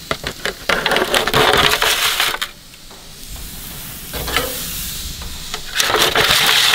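Metal spatula scraping and crinkling against a disposable aluminium foil pan as raw elk burger patties are scooped up, in two loud crackly spells about a second in and again near the end. Softer sizzling from patties on the hot gas grill comes between them.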